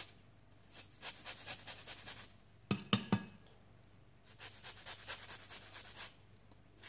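Lemon being zested on a fine rasp grater: quick rasping strokes, about five a second, in two runs, broken in the middle by three sharp knocks.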